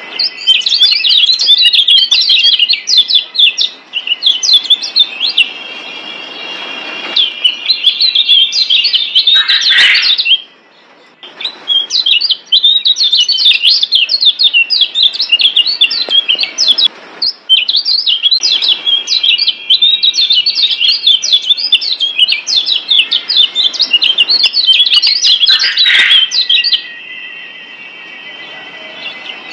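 Kecial kuning (Lombok yellow white-eye) singing a long, rapid, high-pitched twittering song in loud bursts. It breaks off briefly a few times, most clearly about ten seconds in and again near the end.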